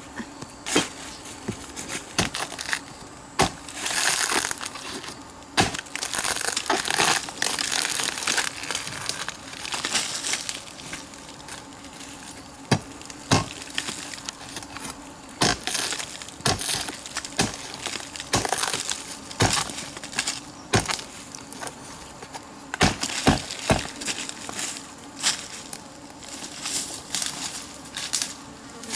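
Machete chopping into a rotten log: sharp knocks at irregular intervals, with stretches of crunching and tearing as soft rotten wood and bark break away.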